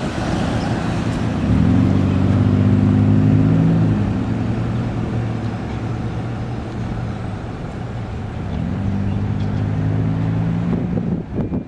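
Street traffic: cars and pickup trucks driving past over steady road noise. Engine hum swells as one vehicle passes about two seconds in and another passes near the end.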